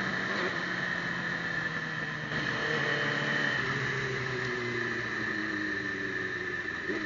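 Sport motorcycle's engine running while riding along a road, its pitch shifting up and down. It gets louder a little over two seconds in.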